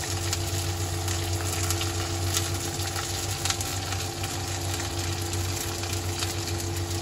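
Shredded cabbage and capsicum sizzling and crackling in hot oil in an iron kadhai, with a steady low hum underneath.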